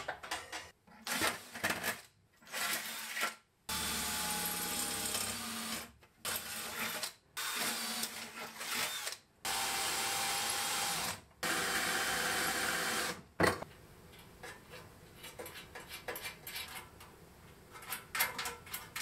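Einhell cordless drill boring into a metal bracket clamped in a vise, run in several bursts of one to two seconds. Before it, metal parts clatter; after it, light clicks of parts being handled.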